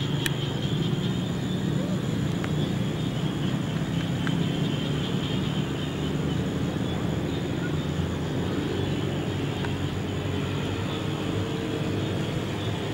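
Steady low outdoor background rumble, with a faint high-pitched hiss that fades over the first few seconds.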